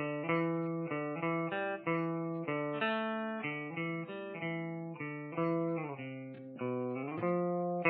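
Outro theme music: a tune of plucked notes and chords, each struck sharply and fading, about two a second.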